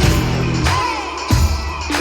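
Background music with a heavy, steady beat and deep bass.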